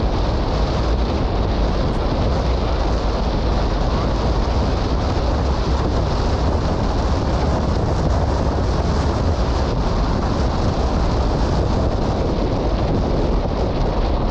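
Strong wind buffeting the microphone, a loud, steady deep rumble with hiss above it, over the noise of a car driving slowly.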